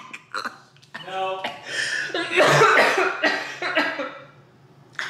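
A woman laughing hard: a few short, gasping bursts, then louder breathy laughter in the middle that dies away near the end.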